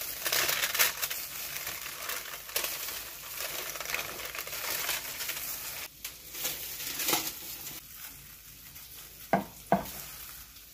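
Aluminium foil crinkling and crackling as it is peeled off a roasted roll. The sound drops away about six seconds in, and near the end come two sharp knocks of a knife cutting down onto a wooden cutting board.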